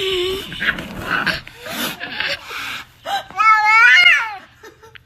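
A pet's long, wavering cry a little over three seconds in, rising and then falling in pitch. It follows a couple of seconds of rustling and knocks.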